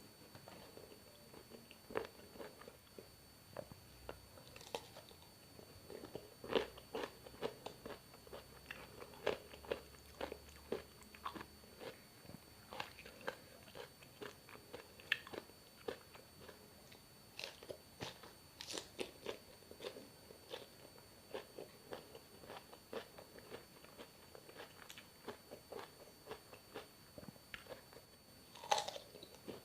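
A person chewing and biting food close to the microphone, with many short crunchy bites and mouth clicks coming irregularly throughout.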